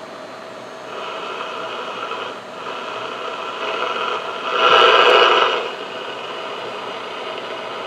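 Connex CX-33HPC1 CB radio's receive audio through an external speaker: a steady hiss with a few faint steady tones in it, swelling louder for about a second near the middle. The external speaker jack is being checked for a reported fault of cutting out.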